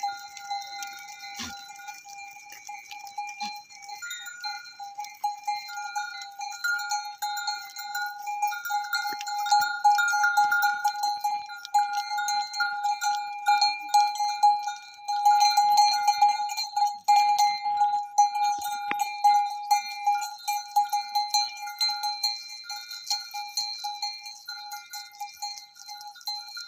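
Many bells on a herd of goats clanking and ringing together in a continuous jangle as the animals walk, louder in the middle stretch.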